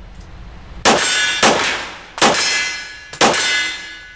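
Four handgun shots fired in a steady string, under a second apart. Each is followed by a metallic ringing clang that dies away over most of a second.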